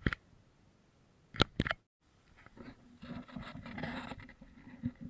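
A few sharp knocks, a brief cut-out, then a rough scraping and crunching from about two and a half seconds in: footsteps and movement over the loose river stones of the bank.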